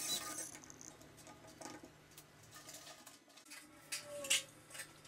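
Quiet, scattered light clicks and taps over a faint low hum.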